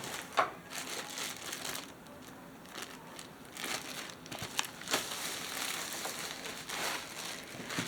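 Plastic packaging of diamond painting kits crinkling and rustling as it is handled, with scattered sharp crackles.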